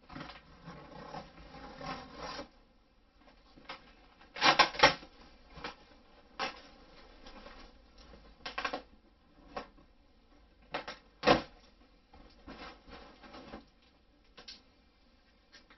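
Packing tape being picked at with fingernails and peeled off a cardboard box, with cardboard scraping and rustling as the box is handled. A few short, sharp, louder noises stand out, the loudest a little past four seconds in and again past eleven seconds.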